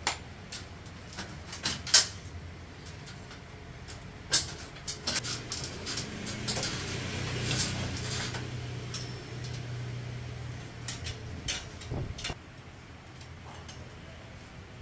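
Metal clicks and clanks from a stainless-steel folding mosquito-net frame, its scissor arms and rods knocking and sliding as they are handled and fitted at the wall brackets. The knocks come singly and irregularly, with a low steady hum for several seconds in the middle.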